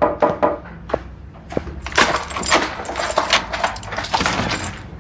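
A few knocks on a wooden apartment door, then a long clicking rattle of keys and a lock being worked as the door is unlocked from inside.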